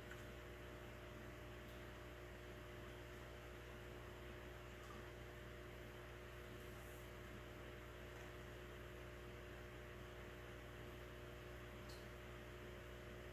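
Faint, steady electrical hum with a light hiss.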